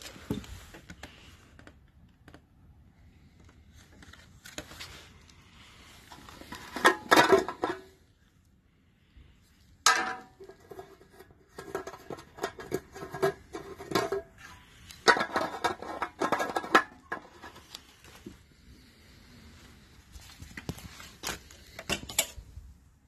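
Irregular handling noises: clicks, rustling and clatter of plastic parts as the caps on a new petrol-driven breathing air compressor are opened and its red oil dipstick is pulled out. A sharper clack with a brief ring comes about ten seconds in.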